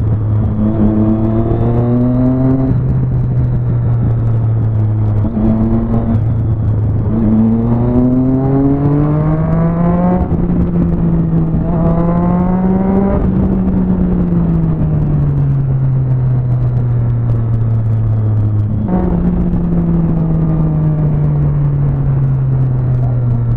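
Inline-four motorcycle with a 4-into-1 exhaust, heard from the rider's seat, pulling up through the gears: the revs rise in several pulls, each cut off by an upshift. Then the rider rolls off and the revs sink slowly.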